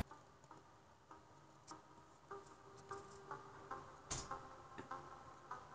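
Near silence: faint room tone with scattered small clicks and ticks, one slightly louder click about four seconds in.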